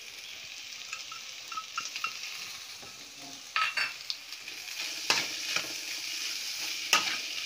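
Food sizzling in a metal kadai with a steady high hiss. From about three and a half seconds in, a perforated metal spatula stirs it, scraping and clicking sharply against the pan a few times.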